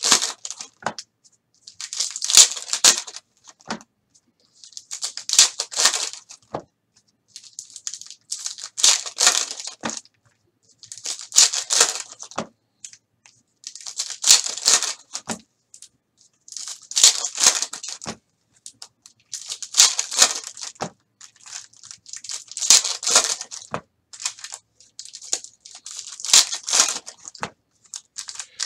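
Foil wrappers of 2017-18 Donruss basketball card packs being torn open and crinkled, one pack after another. Short bursts of crackling rustle come about every three seconds, with quiet gaps between.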